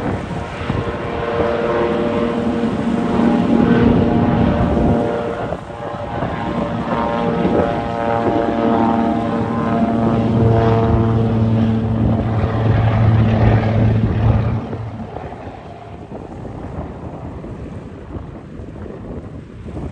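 De Havilland DHC-2 Beaver floatplane's Pratt & Whitney nine-cylinder radial engine and propeller at full takeoff power, a loud steady roar with a strong pitched drone. The sound falls away sharply about three-quarters of the way through and stays fainter after that.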